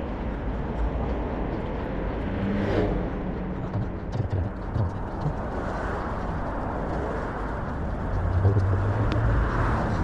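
Road traffic on a multi-lane city street running past the pavement, a steady hiss of cars. One vehicle swells past about three seconds in, and a lower engine hum grows louder near the end.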